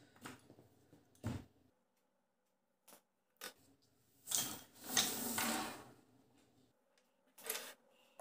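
Wooden pencils being handled and swept off a sheet of drawing paper by hand: a few light clicks as pencils knock together, then a longer rustling slide of hand and pencils across the paper about four seconds in, and another short click near the end.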